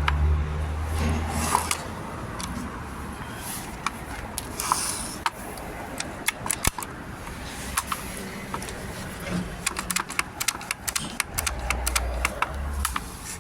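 A string of sharp metallic clicks and clinks, like hand tools working on metal car parts. The clicks are irregular at first and come thick and fast in the second half, with a low hum under them at the start and again near the end.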